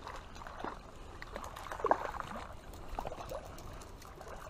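Creek water splashing and sloshing while a hooked brown trout is brought in, with one louder splash about two seconds in.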